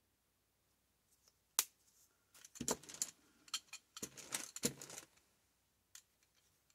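Hard clicks and clattering of small craft tools handled on a worktable, as a paint dauber is set aside and a small rubber brayer is picked up: one sharp click, then two short bursts of clatter, and a last click near the end.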